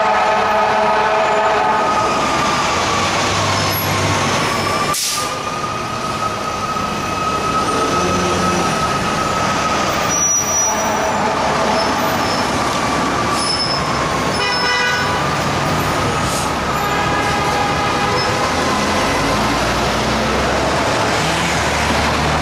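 Fire truck siren sounding as the truck pulls away, holding near one pitch with slow dips and rises, over city traffic. An air horn blasts at the start.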